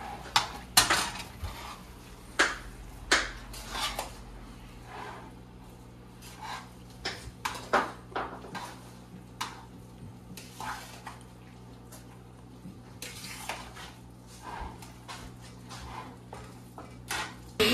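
A metal spoon stirring thick sweet pongal in a Hawkins pressure cooker pot, clinking and scraping against the pot's sides over and over. The strokes come loudest and closest together in the first four seconds, then more sparsely, over a steady low hum.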